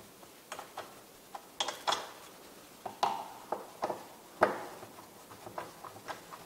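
Irregular sharp metal clicks and taps of a box-end wrench on screws, as the rear glass window's upper hinge is tightened to the soft-top halo.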